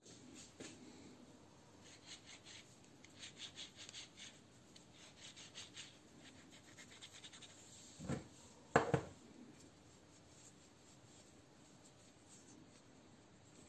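Faint rubbing or scraping strokes repeated for a few seconds, then two knocks about a second apart, the second the louder: hand work on the parts of a car air-conditioning compressor during a bearing replacement.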